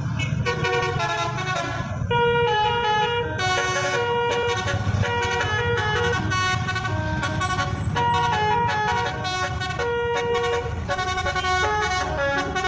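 Bus telolet horn playing a tune: several air-horn tones sound together and step from note to note in quick short phrases, repeated throughout, over a steady low rumble.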